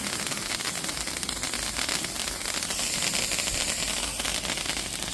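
TNT Blue Wicked Wand hand fountain firework burning with a steady, dense crackling hiss.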